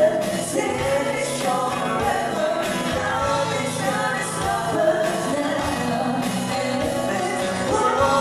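Live acoustic pop cover: a woman singing a melody into a microphone over guitar accompaniment.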